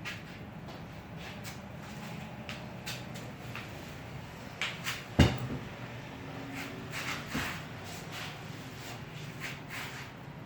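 Clicks and knocks from a chiropractic adjustment being worked on a patient, with one loud thud about five seconds in.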